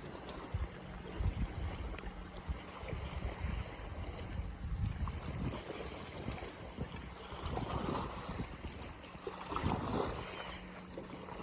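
Faint outdoor background: low, irregular wind rumble on the microphone under a steady high-pitched buzz, with a couple of soft brief noises near the middle and towards the end.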